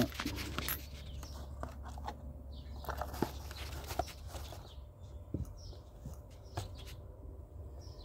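Faint handling noises: scattered small clicks and taps over a low hum that fades out about five seconds in.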